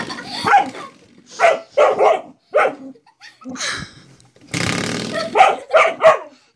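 A young dog barking in short, sharp barks at a spring door stop that it treats as a threat. There is a run of about five barks in the first three seconds, a pause, and then three more quick barks near the end.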